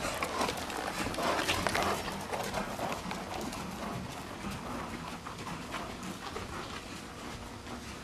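Hoofbeats of a ridden dressage horse on sand arena footing, loudest in the first two seconds as the horse passes close, then fading as it moves away.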